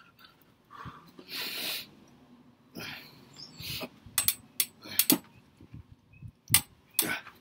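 A man breathing hard from exertion during push-ups: a long hissing exhale, then a run of short, sharp puffed breaths.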